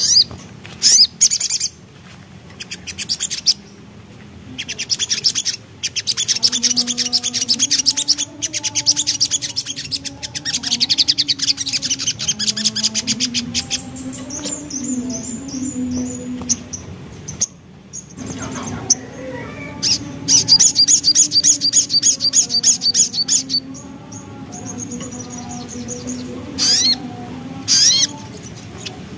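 Crimson sunbird (sogon) song: rapid, high-pitched chattering trills and twitters in several long runs, broken by short pauses. A low, wavering tone runs underneath.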